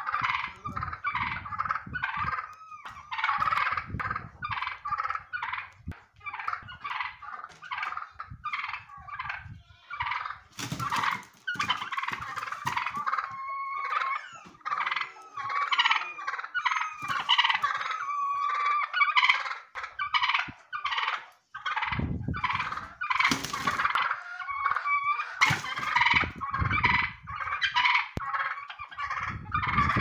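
Domestic turkey toms gobbling and calling in fast, constant strings of short notes, with a few louder bursts of noise around the middle and in the last third.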